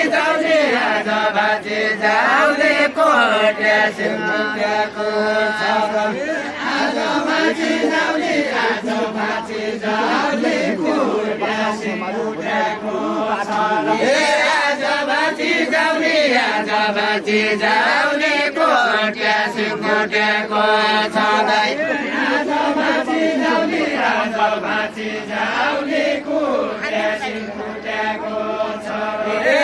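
Voices singing a Deuda, the far-western Nepali folk song, in a chant-like melody that repeats phrase after phrase.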